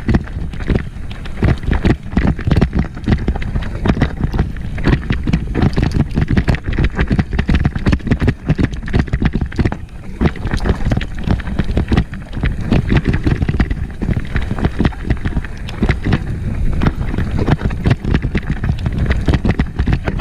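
Downhill mountain bike clattering and rattling over a rough, rocky trail: a dense, irregular run of knocks and jolts from the frame, chain and tyres, with wind rushing on the microphone.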